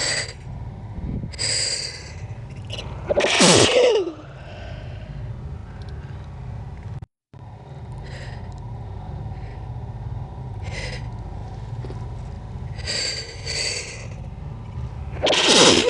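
A person's sneezes played back slowed down. Short breathy intakes lead to a loud sneeze about three seconds in whose voiced tail falls in pitch, and a second slowed sneeze begins near the end.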